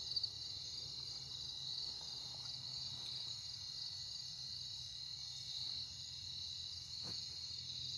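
Steady, high-pitched chorus of crickets chirping, with a faint knock near the end.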